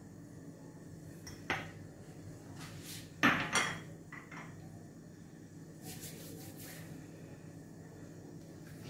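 A few knocks and clatters of kitchenware being handled: one knock about one and a half seconds in, a louder double clatter about three seconds in, and a lighter tap just after.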